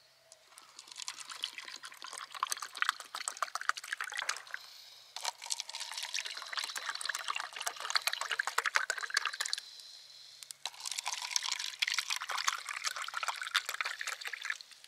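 Green tea poured from a large plastic bottle into paper cups: three pours of about four seconds each, with short pauses between them as the bottle moves from cup to cup.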